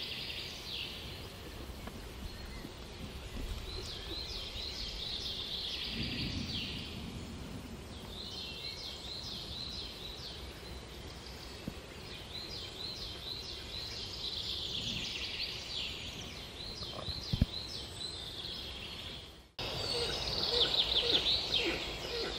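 Woodland songbirds singing: bursts of high, quick, trilled phrases repeating with short pauses over a faint low background rumble. The sound drops out briefly near the end and comes back with louder chirping.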